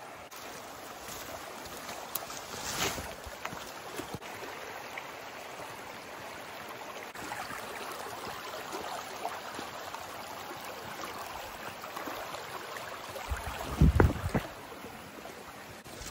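Footsteps and brush rustling through leaves and undergrowth on a walk through the woods, with small scattered snaps and a steady rushing noise underneath. A heavy low thump about two seconds before the end, like the microphone being knocked.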